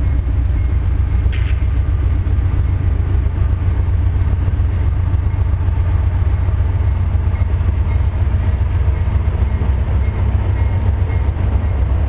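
Diesel freight locomotives passing close by, their engines giving a steady, heavy low rumble, with a single sharp clank about a second in.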